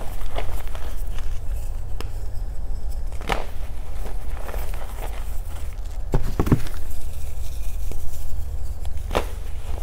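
Reformed gym chalk being crushed, giving irregular crunches and crackles over a steady low rumble.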